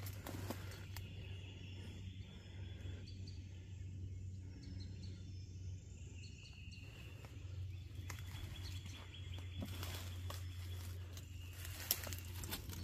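Quiet woodland ambience with a steady low hum, a few faint bird chirps, rustling growing toward the end, and one sharp click near the end.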